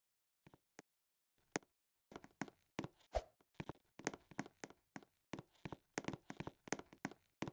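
Faint, irregular taps and knocks: a few scattered ones at first, then about four a second from around two seconds in.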